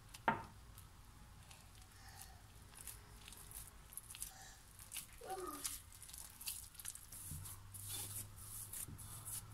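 Hand mixing and kneading flour into a soft butter-and-oil cookie dough in a glass bowl: faint, irregular squishing and rustling, with one sharp click just after the start.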